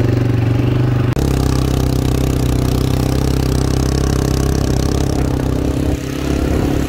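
Quad bike (ATV) engine running at a steady pitch. About a second in the sound changes abruptly, and a steady hiss runs along with the engine from then on.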